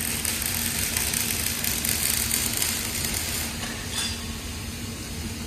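Pneumatic impact hammer running: a dense, steady hissing rattle over a low hum that eases off about three and a half seconds in.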